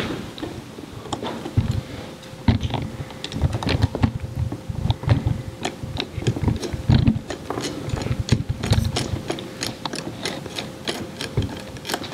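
Long-shaft hand screwdriver turning out a screw from a KNF diaphragm pump's head: a quick, irregular run of light clicks with soft knocks as the handle is twisted back and forth.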